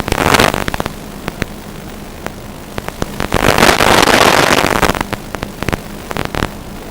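Radio static from an analog FPV video link: steady hiss with a faint low hum and scattered crackles, swelling into louder bursts of noise at the start and for about two seconds around the middle.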